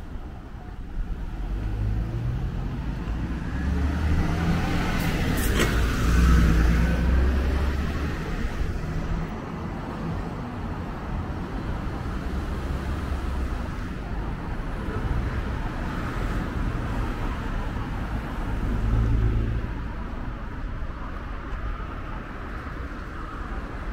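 Road traffic on a multi-lane city street: cars and a bus pass close by with a low engine rumble and tyre noise, loudest about six seconds in and again near the nineteen-second mark.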